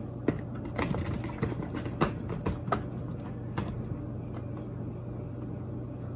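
Coated tofu cubes tumbling out of a plastic container onto a silicone baking mat on a metal baking sheet: a string of irregular soft taps and knocks over the first few seconds, then only a steady low hum.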